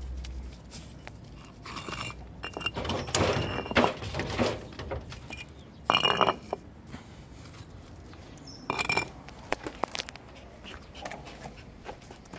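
Shiba Inu puppies play-fighting: several short bursts of puppy growls and yaps, the loudest about six seconds in, with light scuffling on gravel between them.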